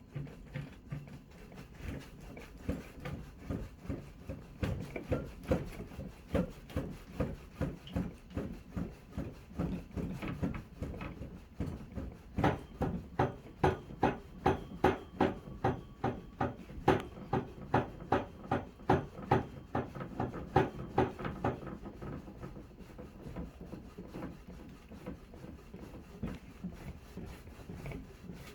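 Rhythmic knocking and rattling, about two beats a second, as a plastic K'nex model building is shaken back and forth in a simulated earthquake test. The knocks grow strongest midway and ease off near the end.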